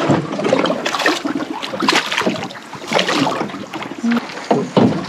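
Irregular water splashing and sloshing.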